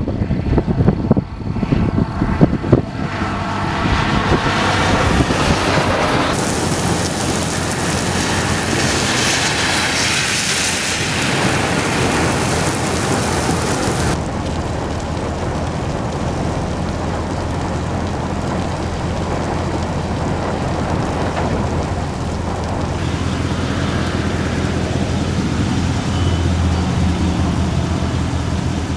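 Wind gusting on the microphone, then heavy rain pouring down in a steady loud hiss. Partway through the hiss changes to a lower, even downpour with a steady low hum underneath.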